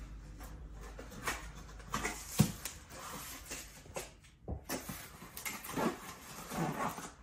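Large cardboard shipping box being opened by hand: scissors cutting the packing tape and the cardboard flaps scraping and rustling as they are pried up, with a sharp knock about two and a half seconds in.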